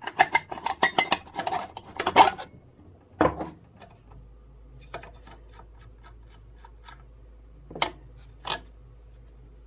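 Hard parts of an old chainsaw being handled: a quick run of clicks and knocks for the first two and a half seconds, another knock a second later, then scattered light ticks and two sharper knocks near the end.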